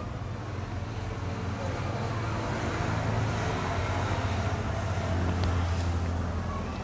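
Low background rumble with a hiss, building over the first few seconds and easing near the end.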